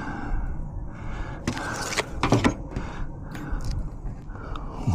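Crackling and scraping handling noises, a cluster of short ticks and rustles about halfway through, over a steady low rumble; most likely a vinyl sign decal being handled and pressed onto the van.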